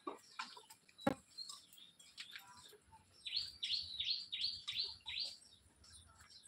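A bird calling in a quick run of about six descending chirps, starting about three seconds in. A sharp knock sounds about a second in.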